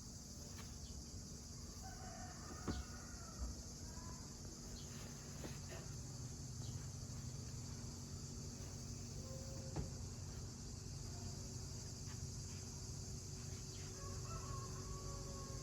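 Crickets chirring in a steady, high-pitched chorus, with a few faint bird chirps about two to three seconds in and again near the end, and scattered light clicks.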